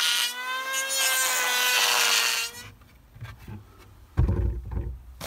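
Handheld corded electric power tool running and cutting wood: a steady motor whine with a slight dip, stopping about two and a half seconds in. A few loud knocks and handling thumps follow near the end.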